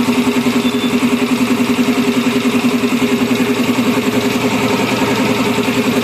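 A motor running steadily with a fast, even throb, typical of tyre-shop machinery such as a tyre changer or an air compressor.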